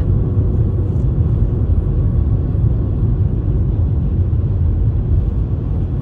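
Steady low rumble of a Mercedes-Benz car driving at road speed, heard from inside the cabin: road and engine noise.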